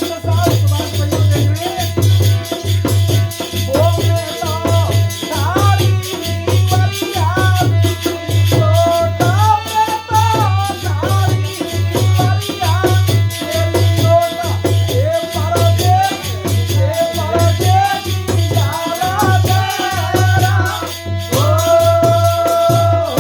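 Holi folk song music with a steady, repeating drum beat, a shaker-like rattle, and a gliding melody line.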